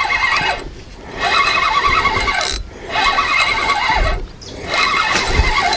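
Spinning reel being cranked to bring in a hooked fish, its gears whirring in several spells with short pauses between turns.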